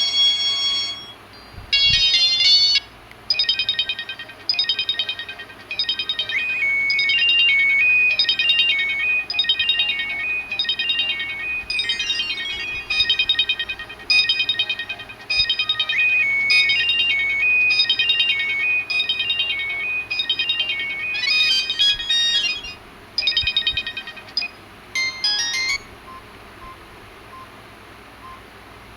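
Samsung GT-E1150 mobile phone playing a ringtone: a quick melody of short, bright beeping notes repeating the same phrase. It stops about 26 seconds in, leaving only faint short blips.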